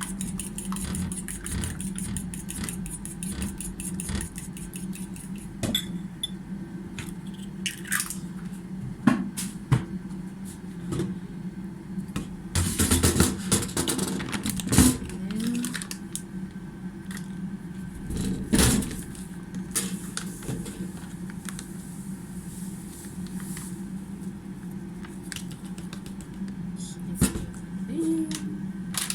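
Eggs and cooking oil being mixed by hand in a bowl: fast, even clicking of a utensil against the bowl at first, then a louder clatter of kitchenware about halfway, over a steady low hum.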